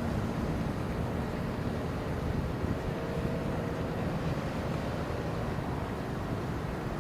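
Steady low rumble of ship engines, mixed with wind noise on the microphone; a faint steady hum rides over it for a couple of seconds in the middle.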